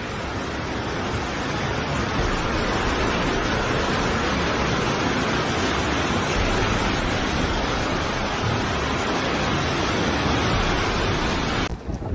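Steady rushing noise of heavy water, as from torrential rain or fast-flowing floodwater, swelling in over the first couple of seconds and cutting off abruptly just before the end.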